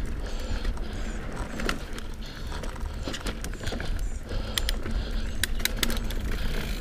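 A mountain bike ridden over dirt singletrack: tyres rolling, with the chain and frame rattling and clicking over bumps, and a thicker run of sharp clicks and knocks near the end. A steady low rumble of wind on the microphone runs underneath.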